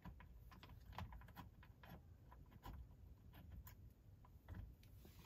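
Faint, irregular small clicks and taps of hands handling a metal dash cam mount clamped to a car's rear-view mirror stem.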